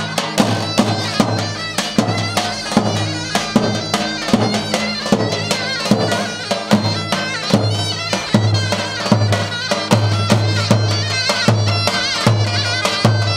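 Davul and zurna playing a Turkish folk dance tune: the reedy zurna carries a wavering melody over the steady beat of the deep, double-headed davul drum.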